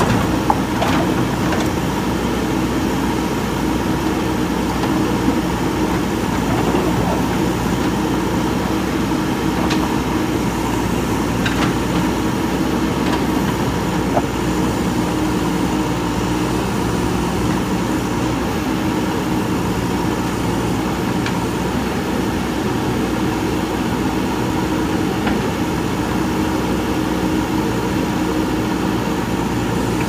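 JCB backhoe loader's diesel engine running steadily while the backhoe works a rock pile, with a few light knocks scattered through.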